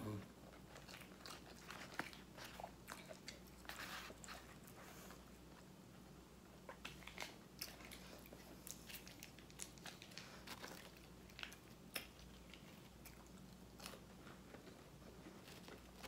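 Faint close-up eating sounds: a person biting and chewing fast food, with scattered small crunches and wet smacks at irregular moments.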